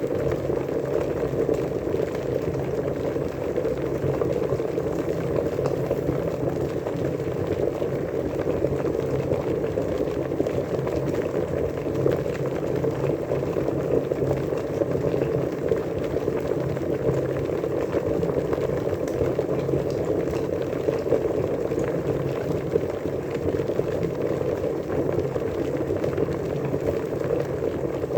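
Water at a steady rolling boil, bubbling continuously and evenly.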